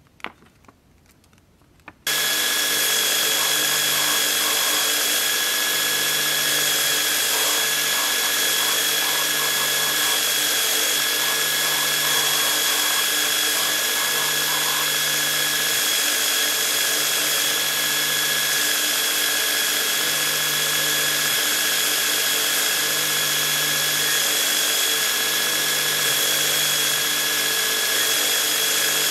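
Knife-making belt grinder running steadily with a high whine, coming in suddenly about two seconds in after a few faint handling clicks. Near the end a steel knife blade is pressed against the moving abrasive belt.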